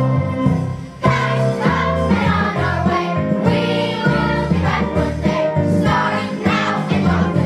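A song with singing over a full accompaniment and a strong bass line; it drops briefly just before a second in, then carries on.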